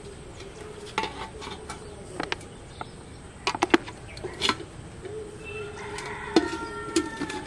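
Steel plate and metal pot clinking and knocking against each other as they are handled, several sharp clinks scattered through, with the loudest ones about three and a half seconds in.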